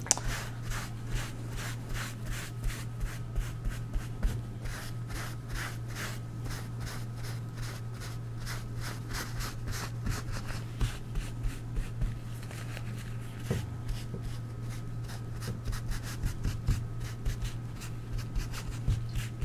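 A folded paper towel rubbing and blotting wet acrylic paint on a textured art-journal page, lifting back paint that went on too dark. It makes quick repeated scrubbing strokes, about five a second, with a few short pauses, over a steady low hum.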